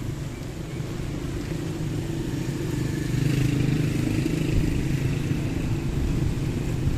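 Street traffic: a motor vehicle engine rumbling, growing louder about three seconds in as it passes close by.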